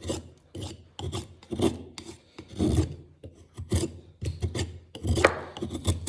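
Hollow-ground 1075 carbon-steel knife whittling wood: a steady run of short shaving strokes, about two a second, each a dry scrape as the blade peels a curl off the stick.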